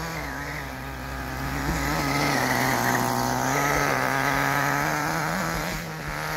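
Small nitro engine of a radio-controlled buggy running under throttle as the buggy drives over dirt, growing louder through the first few seconds and easing off near the end.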